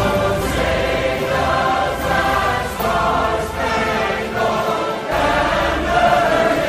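Choral music: a choir singing held chords over a low bass line.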